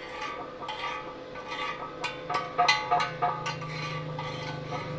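Stick-welding electrode scratched and tapped against steel in a string of irregular scrapes and clicks, trying to strike an arc that never catches: the ground clamp is not properly attached to the work.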